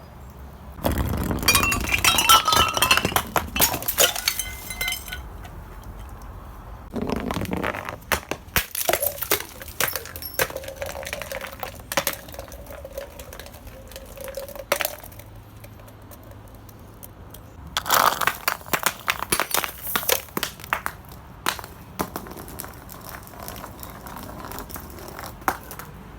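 Glass bottles smashing, three times: loud crashes of breaking glass with high ringing, about a second in, around seven seconds in and around eighteen seconds in. Between the crashes, shards clink and tinkle.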